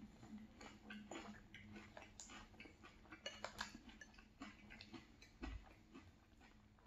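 Faint clinks and scrapes of a metal spoon against a glass bowl as it scoops cereal and milk, a scatter of light irregular clicks.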